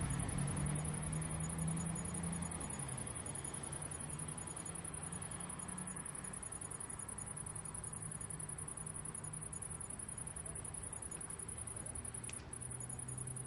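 Crickets chirring in a steady, high-pitched chorus that drops out for a moment near the end, over a low city rumble that is strongest in the first few seconds.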